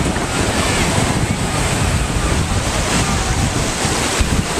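Gulf of Mexico surf breaking and washing through shallow water, with heavy wind buffeting on the microphone.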